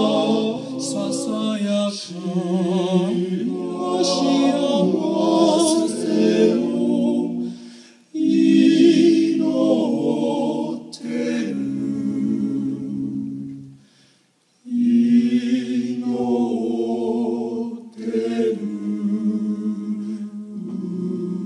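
Male vocal quartet singing a cappella, several voices in harmony, with short breaks between phrases about eight and fourteen seconds in.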